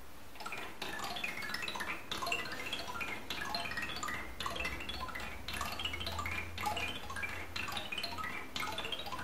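A wooden ball, with a bell set inside it, rolling down the large Sazanami marble tower by Miura Kiji, tapping its spiral of graded unpainted wooden rods in quick rippling runs of xylophone-like wooden notes. The runs come in waves about once a second as the ball works down the tiers.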